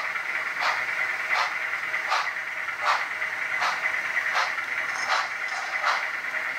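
HO scale model train running: a steady hiss with an even beat of short strokes about every three-quarters of a second.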